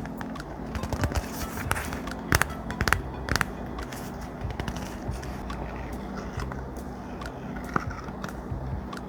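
Thick paper being handled, crackling and crinkling with sharp clicks and taps, busiest in the first few seconds, over soft background music.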